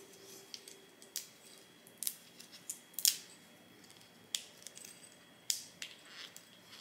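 Fingernails picking at and peeling the capsule over a wine bottle's cork: scattered, quiet, short crinkling clicks at an irregular pace.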